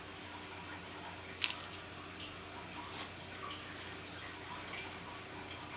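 A cat nosing about in a box of crinkle-cut paper shred: faint rustling and ticks, with two sharp clicks, one about a second and a half in and one about three seconds in, over a steady low hum.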